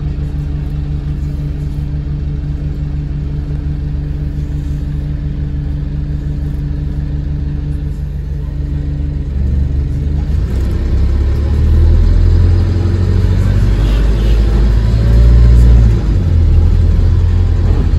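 Bus engine idling steadily, then running harder and louder from about nine seconds in as the bus pulls away and accelerates, heard from inside the passenger saloon.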